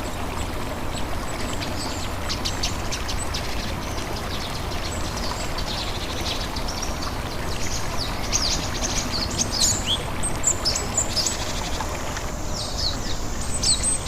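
Steady rush of a small stream or trickle of water, with many short, high bird chirps over it that grow busier about halfway through.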